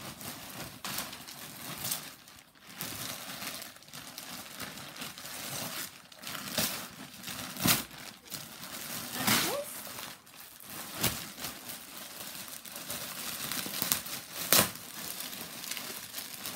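Wrapping paper and clear plastic packaging crinkling and rustling as presents are unwrapped, with a few sharp, louder crackles along the way.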